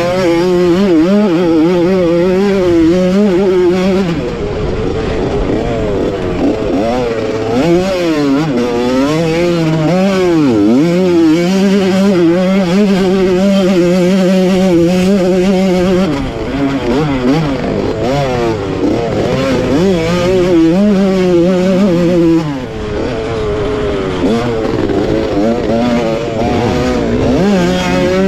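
1985 Honda CR125's single-cylinder two-stroke engine at race pace, revving up and falling back again and again through gear changes and corners, with brief drops in revs several times.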